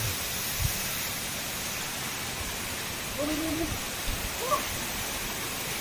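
Steady rushing of a waterfall's falling water. A brief faint voice calls out a little past the middle.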